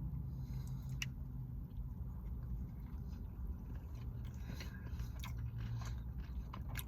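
A person biting into and chewing a White Castle cheese slider dipped in honey mustard close to the microphone. Wet mouth clicks and smacks become more frequent in the second half, over a steady low hum.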